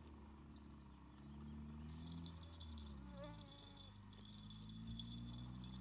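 Faint outdoor ambience: a distant vehicle engine hums low, its pitch slowly rising and falling, and from about two seconds in, insects chirp rapidly at a high pitch.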